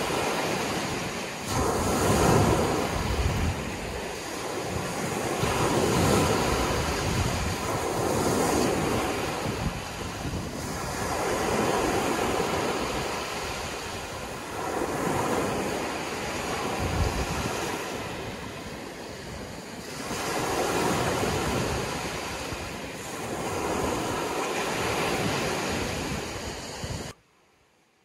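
Small waves breaking and washing up a beach of crushed shells, the surf swelling and fading every few seconds, with wind rumbling on the microphone. The sound cuts off abruptly near the end.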